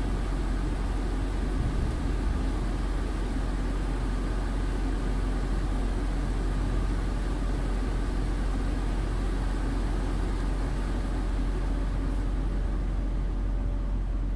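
Steady drone of a heavy vehicle's engine with tyre and road noise, heard from inside the cab while driving slowly on a snow-covered motorway.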